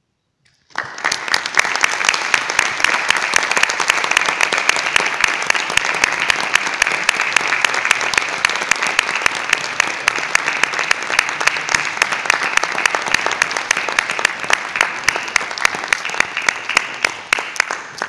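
Audience applauding, breaking out after a moment of silence and going on steadily, with single claps standing out more near the end.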